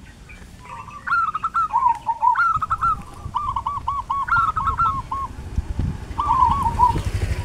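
Birds calling in quick runs of short, repeated notes, each run lasting about a second. A motor scooter's engine comes closer in the last couple of seconds and grows louder under the bird calls.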